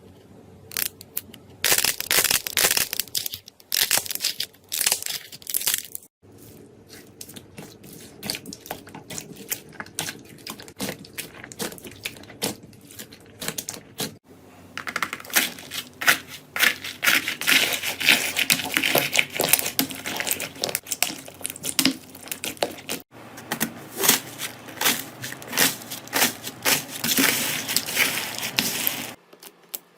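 Slime being squeezed, poked and stretched by hand, making dense crackling, popping and clicking. It comes as several separate clips that change abruptly a few times.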